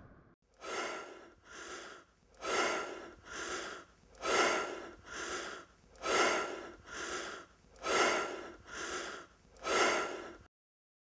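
A person breathing hard: quick, deep in-and-out breaths, about eleven in a row, alternating louder and softer, which cut off suddenly near the end.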